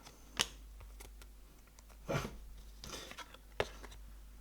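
Trading cards being handled and flicked through: a sharp click about half a second in, a short rustle a little after two seconds, then a few light clicks.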